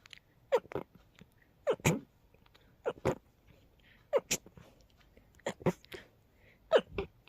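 A person sneezing over and over in a quick fit: about six sneezes roughly a second apart, each a short double burst with the second part the louder.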